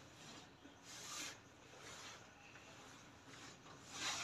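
Faint rubbing and rustling of a cloth wiping a gas stove top, in a few short strokes. The loudest stroke comes near the end.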